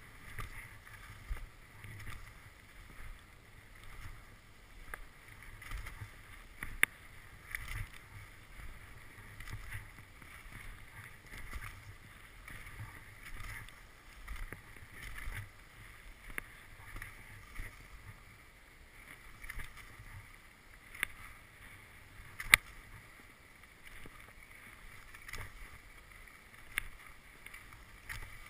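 Skis sliding over freshly groomed corduroy snow, a swishing that swells with each turn about once a second, muffled and boxy through a GoPro's waterproof housing. A few sharp clicks stand out, the loudest about two-thirds of the way through.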